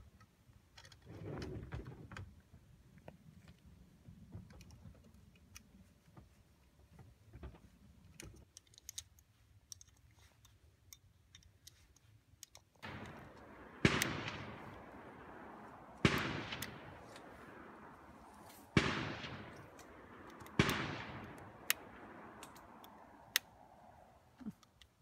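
Small clicks and handling rustle as a tactical bipod is fitted and adjusted on a rifle. From about halfway, four loud gunshots about two seconds apart, each followed by a long echoing tail.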